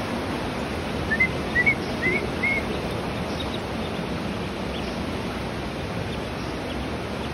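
Call duckling peeping: about five short rising peeps in quick succession, over the steady rush of a shallow creek.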